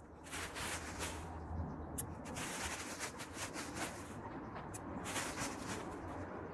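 Crackly rustling of a black plastic garbage bag and grass clippings being handled, in several bursts, with a few sharp clicks in between.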